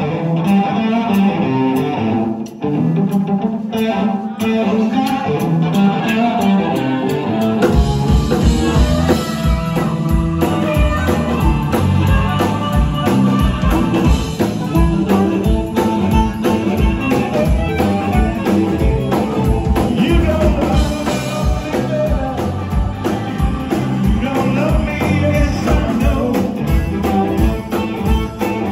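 Live blues-rock band playing. At first only electric guitar plays; about eight seconds in, the drums and bass guitar come in and the full band carries on in a steady beat, with harmonica played into a microphone.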